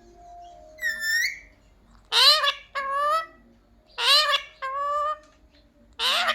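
Indian ringneck parakeet giving a run of short, loud, shrill calls that rise in pitch at the end: one near the start, then two quick two-note pairs, and another near the end.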